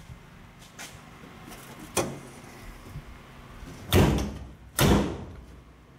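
1964 Ford Thunderbird trunk lid being lowered and shut: a sharp knock about two seconds in, then two loud thuds less than a second apart near the end as the lid closes down onto its seal.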